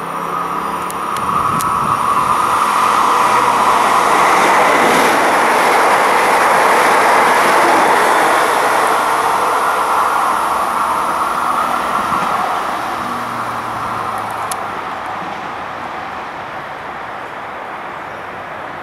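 A Trenitalia ETR 104 'Pop' electric multiple unit passes through the station without stopping. Its running noise swells about two seconds in, holds loudest for several seconds, then fades as the train draws away. There are a couple of sharp clicks near the start and one near the end.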